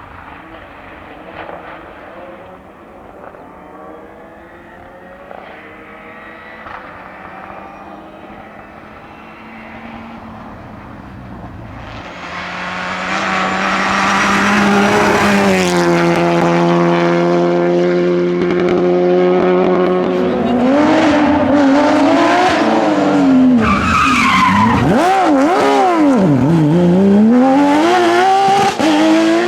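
Rally car engine approaching from afar and growing much louder about twelve seconds in. It holds steady high revs for several seconds, then the revs rise and fall sharply several times as the driver lifts, shifts and accelerates hard through corners.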